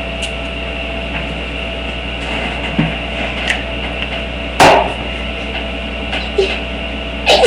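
A person sneezing near the end: one short, loud burst of breath, a real sneeze brought on by sniffing perfume, which barely came up. About three seconds before it comes a single short sharp sound, over a low steady hum.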